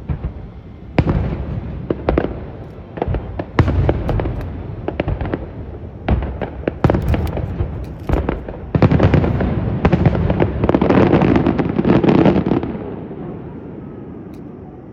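Aerial fireworks shells bursting in a string of separate sharp bangs. About nine seconds in they build into a dense barrage of rapid bangs and crackle that lasts about four seconds, then dies away with a rumbling echo.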